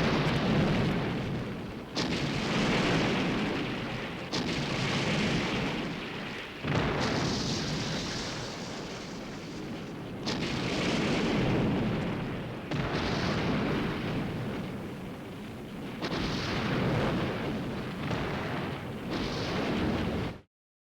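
Film sound effect: a run of about eight heavy, explosion-like blasts, each starting suddenly and rumbling away over a second or two, ending in an abrupt cut.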